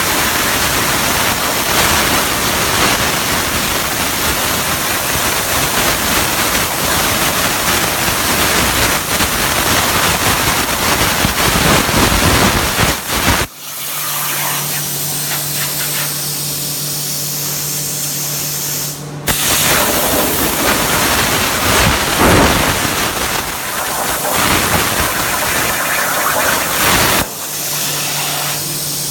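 CNC plasma cutter's torch hissing steadily as it cuts metal. About halfway through the hiss stops abruptly for several seconds, leaving a steady low hum. The hiss then comes back and gives way to the hum again near the end.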